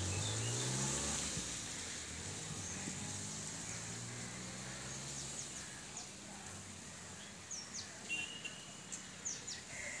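Open-air ambience with a steady hiss, a low, drawn-out droning tone in the first half, and short, high chirps of small birds in the last few seconds.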